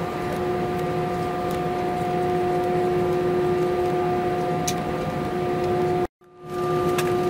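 Steady cabin hum of an Airbus A321-211 taxiing: the CFM56 jet engines at idle whining with several held tones over the cabin air noise. The sound cuts out completely for a moment about six seconds in, then the same hum returns.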